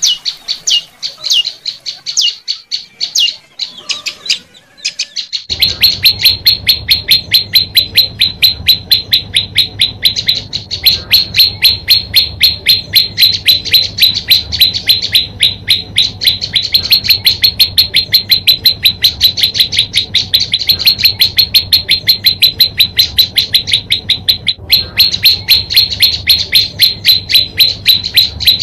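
Prenjak lumut songbird calling: sharp, high chip notes, loosely spaced with a brief lull over the first few seconds. From about five seconds in they turn into a fast, unbroken series of about six notes a second.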